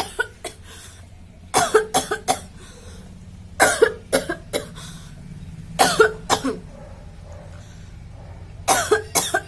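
A woman coughing in repeated fits of two to four coughs, about one fit every two seconds. It is a deliberately acted cough, not a real one.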